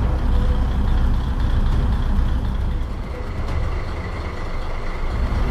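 Heavy truck engine running steadily, a low, even hum that dips slightly about three seconds in.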